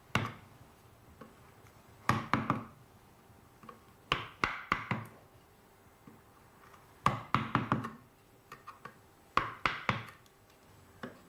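Genno hammer striking a roughing chisel into a block of Japanese whitebark magnolia, rough-carving the wood: bursts of three to five sharp knocks, one burst every two to three seconds.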